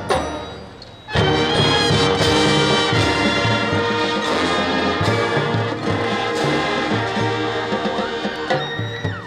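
Marching band playing, brass to the fore: a sharp accented hit at the start dies away, then about a second in the full band comes in loud with held chords and carries on.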